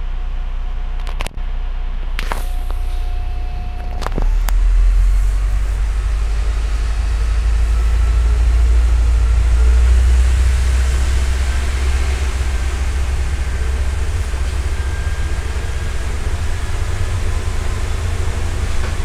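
Diesel engine and running gear of a MAZ-105 articulated city bus heard from inside, a low steady rumble that grows louder about four seconds in and stays up as the bus drives along. Before that come a few sharp clicks and a short steady beep.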